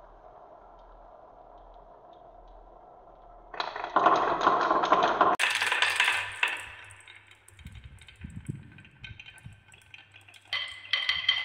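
Glass marbles rolling around a wooden spiral marble-run track with a faint steady rumble. After about three and a half seconds there is a loud, dense clatter of many marbles tumbling through the wooden run for about two seconds, then quieter scattered clicks as they roll along wavy wooden tracks. Near the end a brighter, ringing clatter starts.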